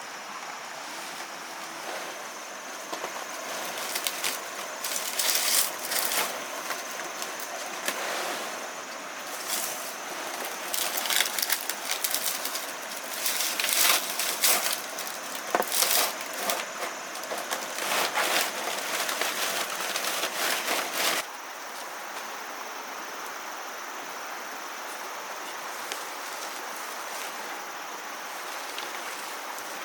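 Irregular sharp knocks and clatter of hand work over a steady outdoor hiss; about twenty seconds in the knocking stops abruptly, leaving only the hiss.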